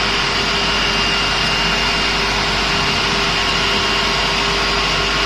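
Digital knife cutting machine running with a steady whir and hum.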